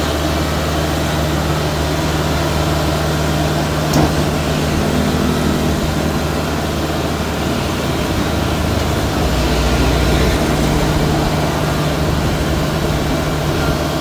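Kubota DC70 Plus combine harvester's diesel engine running steadily as the machine climbs on its rubber tracks up steel loading ramps onto a truck. There is a single sharp knock about four seconds in, and the engine grows a little louder past the middle.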